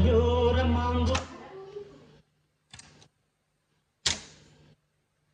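Music playing back through an AKAI GX-1900D reel-to-reel and cassette deck cuts off with a sharp mechanical click about a second in. The deck's transport keys then give a short clack near three seconds and a sharper click near four seconds.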